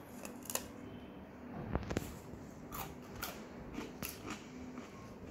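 Biting into and chewing a piece of gajak, a brittle sesame-and-peanut sweet: a string of sharp, crisp crunches, loudest about two seconds in.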